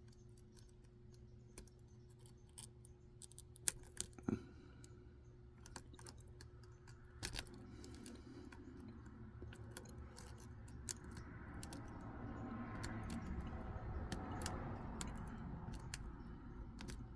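Lock pick and tension wrench working in a Dom IX Saturn lock as it is picked: scattered small metallic clicks with light scraping, and a steadier rubbing noise that builds from about ten seconds in.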